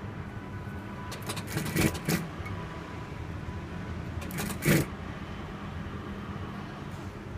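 Handling noise from a stiff canvas-and-leather shoe upper being turned close to the microphone: a cluster of rustling scrapes between one and two seconds in and another near five seconds, over a steady low electric hum.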